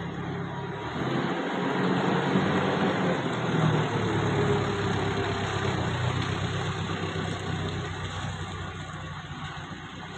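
Forklift engine running as it drives past carrying a loaded pallet, growing louder as it comes close a couple of seconds in, then fading as it moves away.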